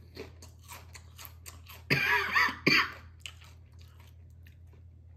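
A person chewing a crunchy Doritos tortilla chip, a run of short crackling crunches. About two seconds in come two short, loud throaty noises.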